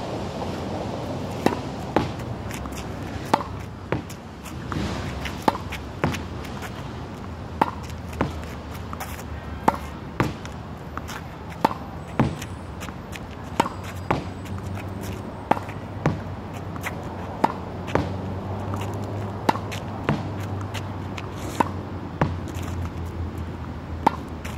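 A tennis ball hit against a practice wall in a steady rally: pairs of sharp pops about half a second apart, racket on ball then ball on the wall, repeating about every two seconds over a low steady rumble.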